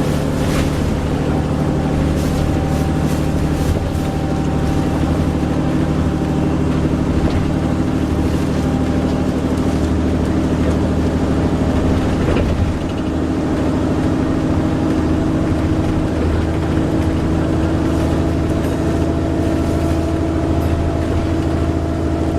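Wright Pulsar Gemini 2 double-decker bus on a VDL DB300 chassis under way, heard from inside: a steady droning made of several held tones over engine and road rumble. About twelve seconds in, the drone dips briefly and settles at a new pitch.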